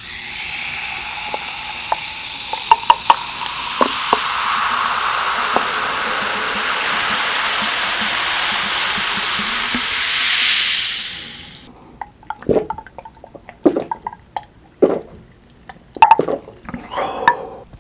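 Cheese seasoning powder being poured and shaken over crispy fried chicken drumsticks: a steady hiss with a few sharp ticks, swelling slightly before it stops suddenly about twelve seconds in. After that come a handful of separate sharp crackles and clicks.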